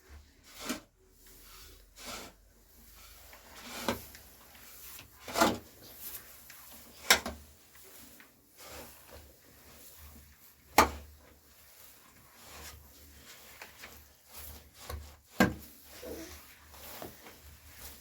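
Irregular scrapes and sharp knocks from hand work on an earth floor, soil and stones being moved and struck, with a few louder strikes spread through.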